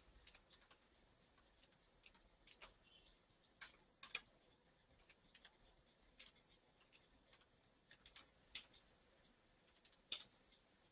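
Faint computer keyboard keystrokes while text is typed into a form: scattered single clicks at irregular intervals, with pauses of a second or two between some of them.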